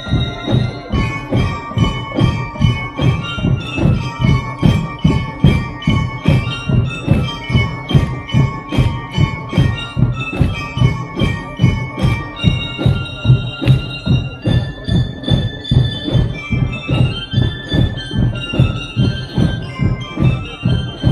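Drum and lyre band playing: bass and snare drums keep a steady beat of about two strong hits a second under a ringing bell-lyre melody.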